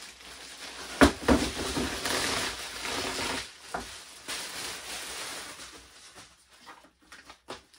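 Plastic bag crinkling and rustling as it is pulled off a tool, with a sharp knock about a second in as the loudest moment. The rustling dies down after about three and a half seconds, leaving a few faint clicks near the end.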